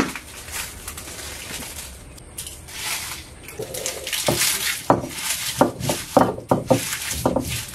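Roasted chillies, coriander and pepper being ground on a flat Kerala grinding stone (arakallu) with a stone roller: repeated back-and-forth scraping strokes that get louder and come faster from about halfway in.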